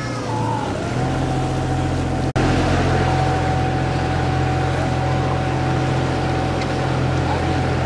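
Canal tour boat's motor running with a steady low hum, stepping up in level about a second in as the boat moves along the canal.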